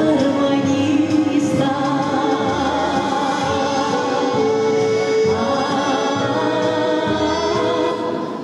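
Choral music: several singing voices holding long, sustained notes together. It fades out near the end.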